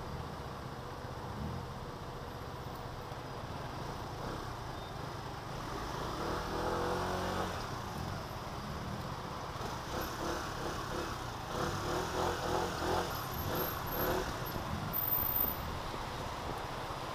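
SYM scooter engine running at idle among other idling cars, its note rising and falling as it creeps forward: a rise in pitch about six seconds in, then several uneven surges in the later seconds.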